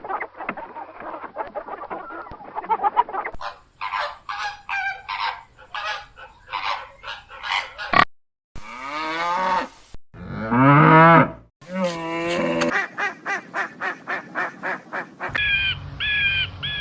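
A string of different farm-animal calls cut one after another: busy flock chatter, then a run of repeated goose-like honks, then several other short bleating and lowing calls.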